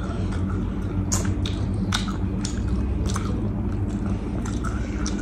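Close-up eating sounds of sauced Korean fried chicken wings being bitten and chewed, with irregular wet crunches and smacks. A steady low hum runs underneath.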